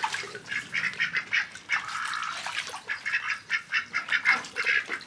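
White domestic ducks bathing in a plastic paddling pool, quacking and splashing in quick, irregular bursts.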